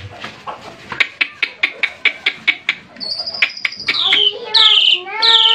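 Caged songbird singing: a run of sharp chips at about five a second, then high whistled notes that slide downward, with a lower held note with many overtones near the end.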